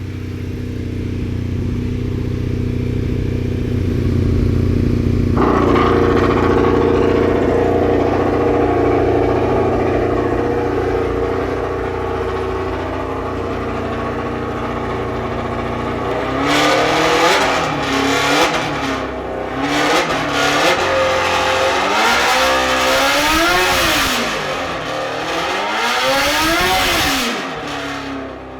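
Honda Hornet inline-four engine of an FSAE race car running at a steady speed, its note growing fuller about five seconds in. From about sixteen seconds in it is revved up and down repeatedly in quick blips.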